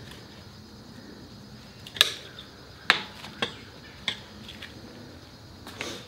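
Steel tire levers clinking against a spoked motorcycle rim while a tire bead is worked onto it: four sharp metallic clicks in about two seconds, the loudest about two seconds in.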